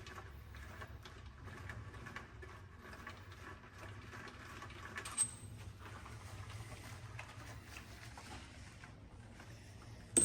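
Hand tools and metal engine parts being handled during an engine teardown: faint scraping and light clicks over a steady low hum, with one sharp metallic clink about five seconds in.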